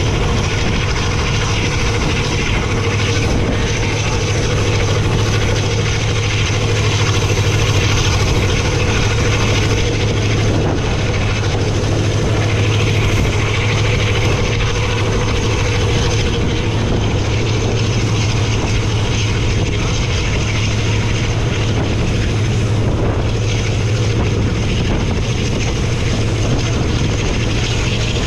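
Tezgam Express train running at high speed: a loud, steady low drone with a rushing noise over it, unchanging throughout.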